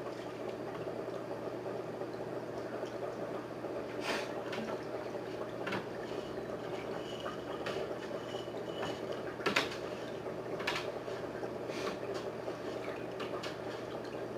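Water from a garden hose running steadily into a fish tank, with a low steady hum underneath. A few light knocks and clicks come through, the loudest about halfway through.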